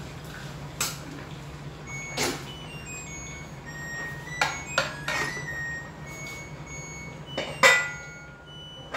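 A spoon clinking against a cooking pot while kangkong greens are stirred: several separate ringing clinks. The pot's lid then goes on with the loudest clank, a little before the end. A steady low hum runs underneath.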